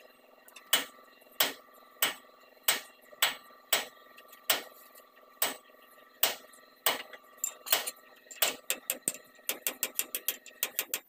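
Hammer striking the steel front wheel hub of a Hino truck, sharp metal-on-metal blows under a second apart, coming faster near the end.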